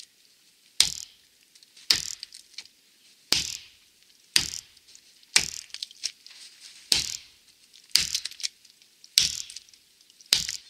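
Wetterlings Bushman axe chopping into a standing ash trunk at an angle: about nine sharp, crisp strikes, roughly one a second.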